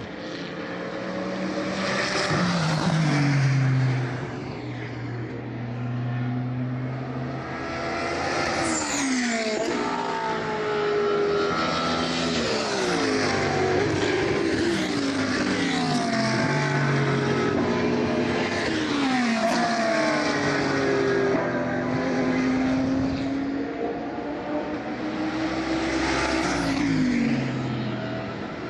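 Several GT3 race cars passing one after another, engines revving hard, with the pitch of each dropping as it goes by.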